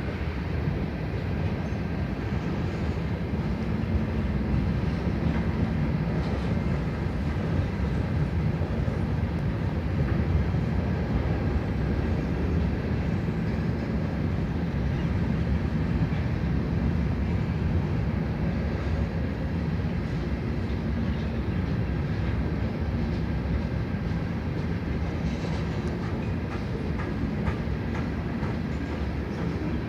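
CN freight train rolling past on the rails: a steady, even rumble of wheels and railcars with no horn sounding.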